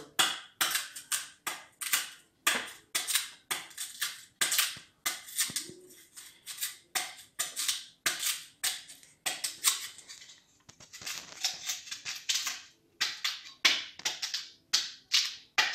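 Large kitchen knife slicing the tough brown skin off raw cassava root in quick repeated strokes, about two to three a second, each a short, sharp cut.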